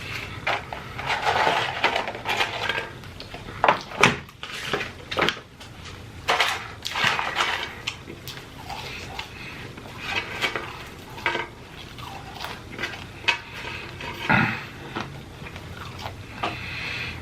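Eating noises: a person chewing and smacking, with irregular clicks and clatter of food packaging and tableware.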